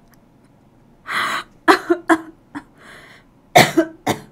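A woman's short, breathy bursts from the throat, about six of them in quick groups, the loudest a little past three and a half seconds in.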